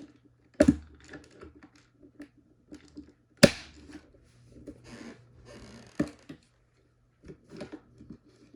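Clicks and rattles of batteries being fitted into the battery compartment of a plastic carbon monoxide alarm: three sharp clicks, the loudest about three and a half seconds in, with light rattling and a brief rustle between them.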